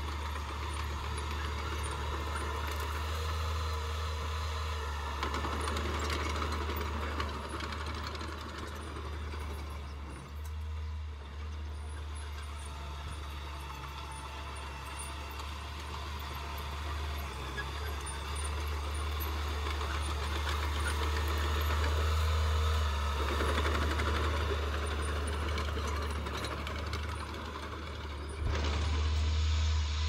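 Small Mitsubishi crawler bulldozer's diesel engine running as the dozer pushes soil, a steady low drone with a rough rattling layer that swells and eases as it works.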